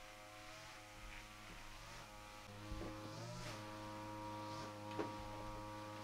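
A small engine running at a steady speed, an even low hum that dips slightly in pitch now and then, with a couple of faint knocks.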